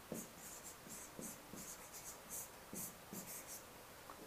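Faint scratching and light tapping of a pen or stylus writing on an electronic whiteboard: a run of short strokes that stops about three and a half seconds in.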